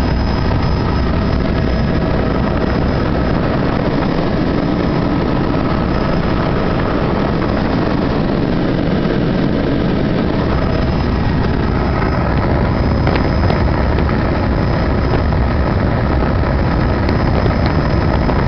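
Helicopter in flight: steady engine and rotor noise with a faint high, steady whine.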